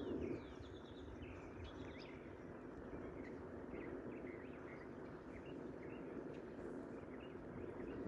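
Faint birds chirping: many short, high calls scattered throughout, over a low, steady background noise.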